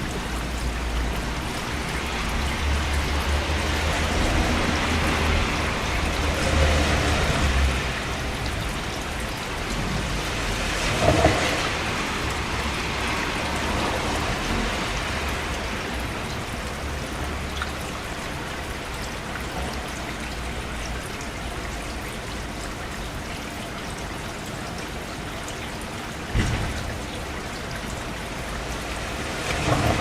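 Steady rain falling, with thunder: a low rumble swelling through the first several seconds, then a few short, sharper bangs, one about a third of the way in and two near the end.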